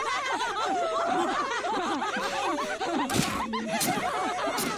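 Several women laughing together in loud, overlapping cackles. A few sharp noisy bursts come about three seconds in.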